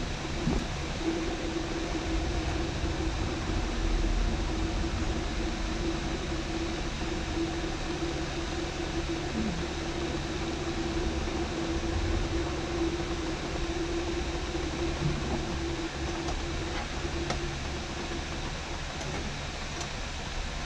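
Electric motor and hydraulic pump of a 1968 Cutlass convertible power top running steadily: an even hum with a steady whining tone, driving the top's hydraulic cylinders.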